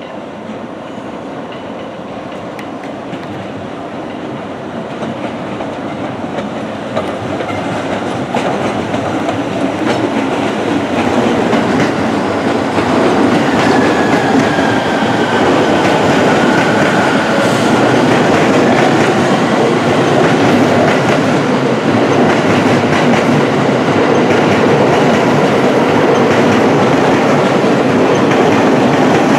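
A train double-headed by steam locomotive C61 20 and electric locomotive EF64 1001 rolling past, wheels clattering over the rail joints. It grows louder over the first dozen seconds, then stays loud and steady, with a faint high squeal near the middle.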